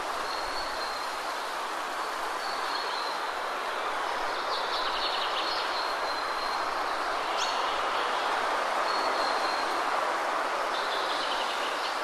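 Steady rushing wind that swells a little mid-way, with birds singing over it: short high whistled notes repeated several times and a couple of quick trills, one in the middle and one near the end.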